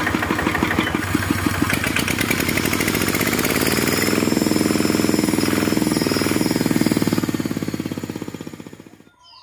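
Kubota walk-behind tractor's single-cylinder diesel engine being throttled up. Its rapid chugging speeds up over the first few seconds and then holds at high revs, spinning the belt-driven dynamo that lights the headlamps. The sound fades away near the end.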